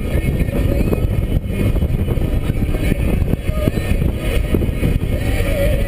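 Cabin sound of a 2013 Scion FR-S driven on track: its 2.0-litre flat-four engine running, mixed with road and wind noise, loud and steady.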